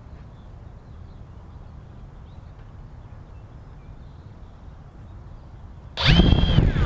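FPV quadcopter's electric motors spinning up sharply about six seconds in: a loud, high whine that climbs quickly in pitch, holds briefly, then begins to drop near the end. This is a quick throttle blip on the ground, with no takeoff. Before it there is only a low, steady background rumble.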